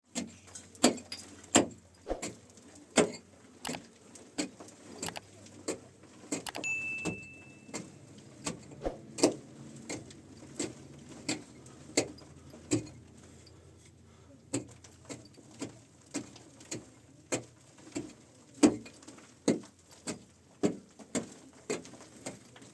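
Repeated sharp blows of a hand tool, about one every three-quarters of a second, keeping up through the whole stretch. A brief high steady tone sounds once, about seven seconds in.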